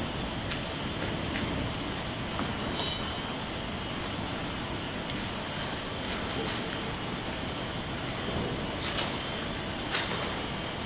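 Steady rushing room noise in a large sports hall, with a few short knocks from a climber's hands and shoes on the holds of an indoor climbing wall, two of them about a second apart near the end.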